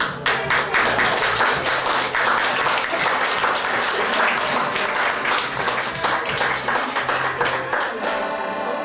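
Audience applauding: dense, fast clapping from many hands that fades about eight seconds in as keyboard music with held notes comes back.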